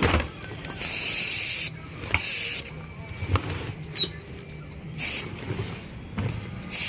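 Compressed air from a shop air compressor line hissing in four short blasts. The first lasts about a second, the next half a second, and the last two are brief.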